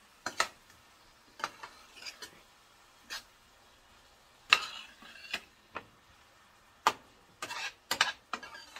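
A spoon scraping and clinking against a skillet as chopped vegetables are stirred and turned, in irregular knocks and short scrapes, the loudest about halfway through.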